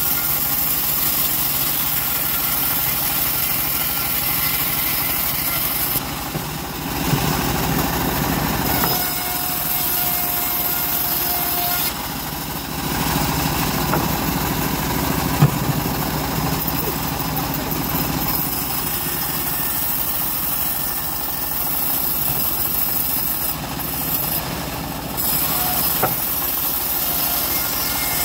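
Homemade engine-driven bandsaw mill running steadily while its blade resaws teak boards fed along the table. The sound shifts a few times as cuts start and end.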